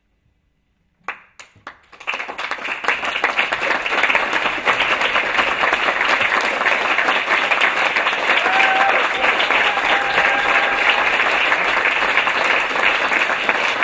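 Audience applauding: a few scattered claps about a second in, then full, steady applause from many hands.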